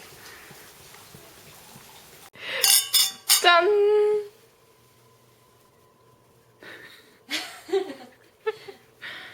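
Cups clinked together in a toast about two and a half seconds in, several sharp clinks ringing briefly under a voice calling "jjan!" that falls in pitch. Softer voices and a laugh follow near the end.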